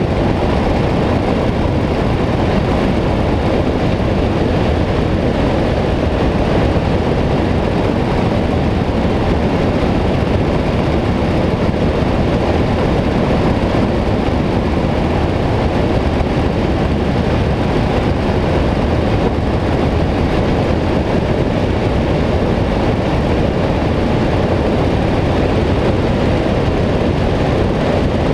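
Harley-Davidson motorcycle cruising at steady speed: constant wind rush on the bike-mounted camera with engine and road noise beneath, unchanging throughout.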